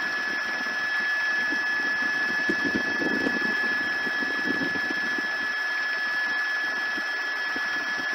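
Steady helicopter cabin noise heard through the aircraft's radio and intercom audio: an even hiss with a constant high-pitched whine.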